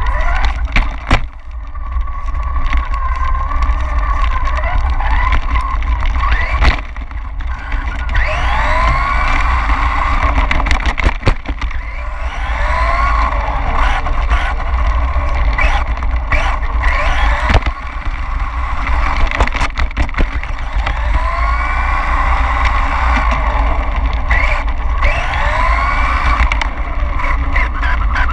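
A 1/10-scale 4WD RC car's motor and drivetrain whining, the pitch repeatedly rising as it accelerates and dropping as it lets off, over a heavy low rumble from the onboard camera moving with the car, with scattered sharp knocks.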